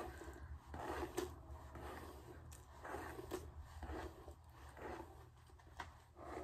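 Hair being combed: faint, repeated scraping strokes, about two a second.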